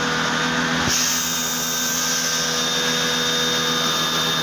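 Motor-driven water pump running steadily to fill a flood-barrier test with water, with a hissing rush joining about a second in.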